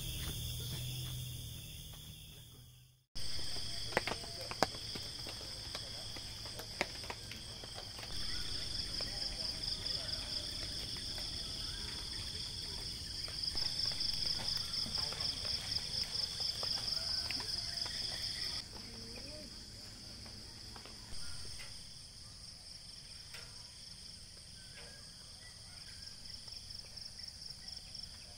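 Chorus of night insects in trees: a steady, high, rapidly pulsing trill, loudest in the middle, that drops in level after about 18 seconds. Faint scattered clicks run through it. A quieter sound fades out and cuts off about three seconds in, before the chorus starts.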